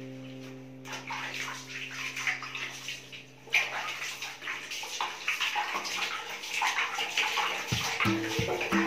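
Water splashing and sloshing in a basin as a wet cat is lathered and scrubbed by hand, irregular and louder from about halfway through. Background music fades out in the first few seconds and comes back near the end.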